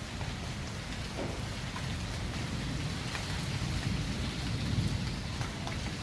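Steady rain falling, with scattered drip ticks and a low rumble underneath that swells about halfway through.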